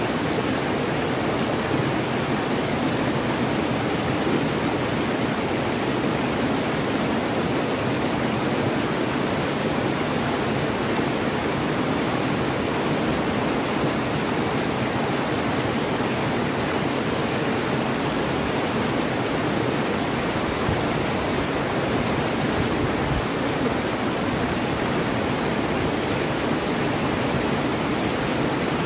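Shallow river rapids rushing over rocks below a weir: a steady, unbroken noise of white water.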